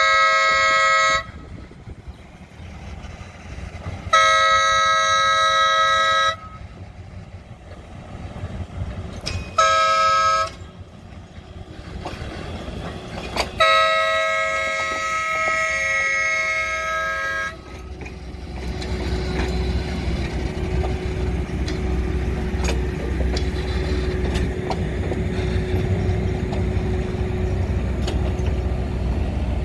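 Locomotive air horn sounding a chord of several notes in the grade-crossing pattern: the end of a long blast, a second long blast, a short one, then a final long blast. After that comes the low, steady rumble of the train rolling past.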